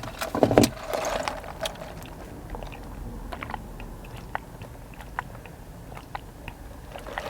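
A person chewing a mouthful of breaded chicken tender wrap, with scattered small crunches and wet mouth clicks.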